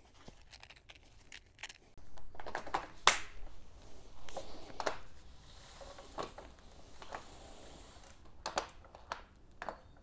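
Scattered scuffs and sharp clicks of cycling shoes being handled and their cleats knocking and scraping against PowerTap P1 clipless pedals while the rider tries to clip in, with a cluster of quick clicks near the end.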